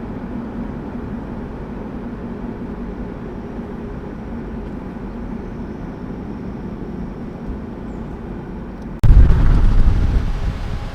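Car road and engine noise while driving, a steady low hum. About nine seconds in it jumps suddenly to a much louder low rumble that fades away over the next two seconds.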